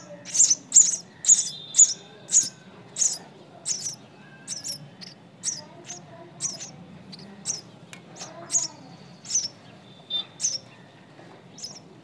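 Nestling birds giving short, high-pitched begging chirps, about two a second and loud for the first few seconds, then fainter and more spaced out.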